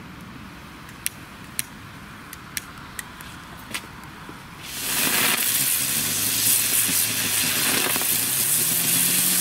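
Small Category 1 ground fountains burning: a few sharp crackles at first, then from about five seconds in a loud, steady hiss as the fountains spray sparks.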